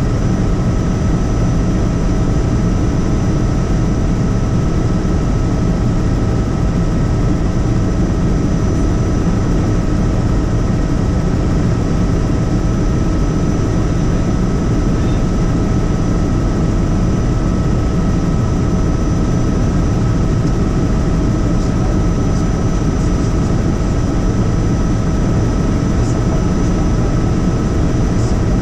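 Helicopter in flight, heard from on board: a steady, loud rumble of rotor and engine with a constant whine running through it.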